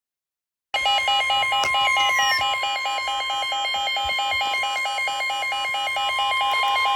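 Weather radio emergency alert: a steady, high single-pitch warning tone of about 1,050 Hz together with a harsher alarm beeping about five times a second. It starts abruptly out of dead silence about three-quarters of a second in, and it signals that a tornado or severe weather warning is about to be broadcast.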